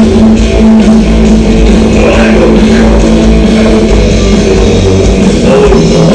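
Rock band soundchecking, very loud: electric guitar and bass hold a low note that steps lower near the end, heard from the street outside the venue.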